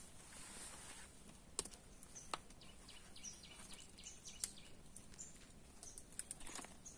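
Quiet outdoor background hiss with scattered faint, short high chirps and a few sharp clicks.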